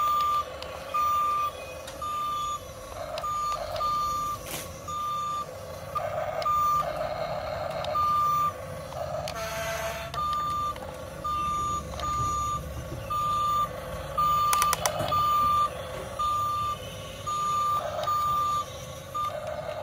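Toy remote-control excavator's electronic warning beeper, a single high beep repeating about once a second. Between some beeps come short spells of small electric motor and gear whir as the boom and tracks move.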